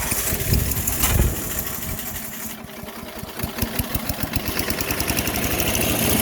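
Craftsman 4 HP wood chipper/shredder's small single-cylinder engine just after starting on its new replacement carburettor. It runs unevenly and loudly for the first second or so, then settles into a faster, even run as it warms up.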